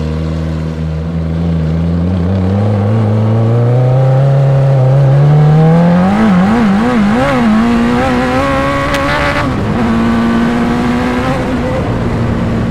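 Off-road buggy's Suzuki Hayabusa motorcycle engine accelerating hard on a flat-out run. The engine note climbs steadily for about six seconds, wavers briefly, then holds high at speed, dips near the ten-second mark and settles into a steady drone. Wind and tyre noise run underneath.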